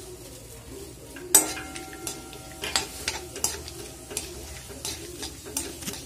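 Whole spices (cinnamon, cloves, fennel seeds) and a bay leaf sizzling in hot oil in a kadai while a steel spoon stirs and scrapes them against the pan. About a second in, the spoon strikes the pan with a loud clink that rings briefly, followed by lighter taps and scrapes.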